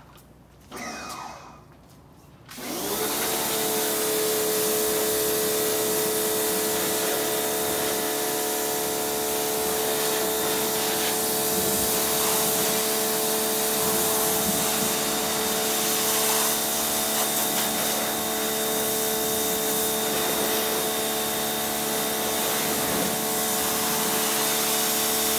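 Pressure washer starting up about two and a half seconds in and then running steadily with a constant hum, its water jet hissing as it rinses bug remover off a car's front bumper.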